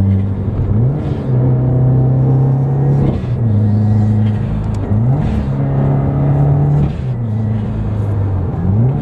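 Subaru WRX's turbocharged flat-four engine, heard from inside the cabin as the car is driven through the gears with its manual gearbox. A steady engine note changes pitch with a short glide every two to four seconds, at each clutch-and-shift.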